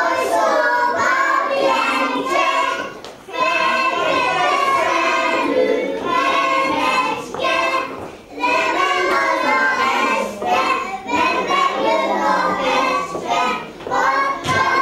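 A group of young children singing a song together, in phrases with short breaks about three and eight seconds in.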